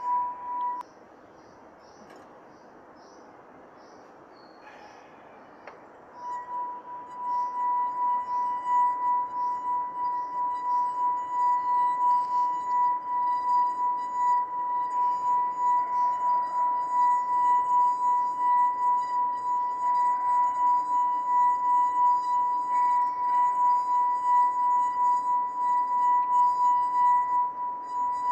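Glass funnel rim 'singing' under a moist finger rubbed around it: a clear, steady ringing tone with a higher overtone, wavering gently in loudness. The tone breaks off under a second in and returns about six seconds in, then holds.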